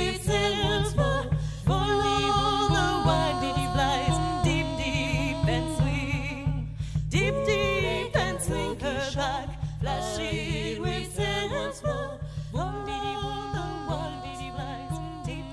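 Female vocal trio singing held notes in close harmony over percussion, in two phrases with a short break between them.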